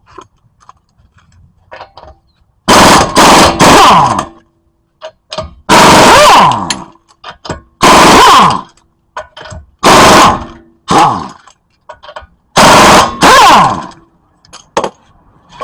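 Impact wrench rattling in loud bursts of half a second to a second and a half, about six times, loosening the wheel's lug nuts.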